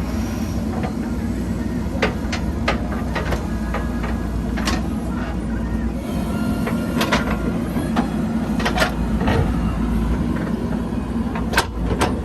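JCB 3DX backhoe loader's diesel engine running steadily, with sharp metallic clanks and knocks scattered throughout.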